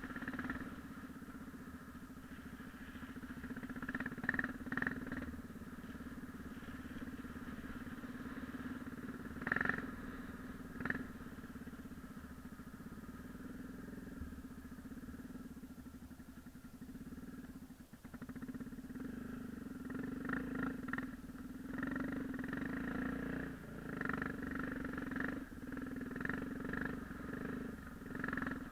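Yamaha XT 600's single-cylinder four-stroke engine running as the bike is ridden off-road, fairly steady at first with a few sharp knocks, then rising and falling with the throttle over the last third.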